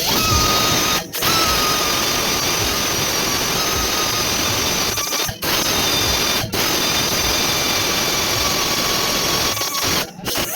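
Handheld rotary power tool running steadily with a high whine, cutting out briefly four times, as used to work a tyre at a large puncture.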